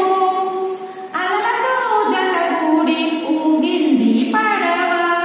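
A woman singing a melody in long held, gliding notes, with a short break between phrases about a second in.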